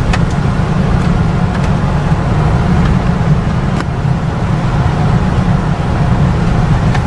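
Steady road and engine rumble of a car driving, heard from inside the cabin, with a few faint clicks.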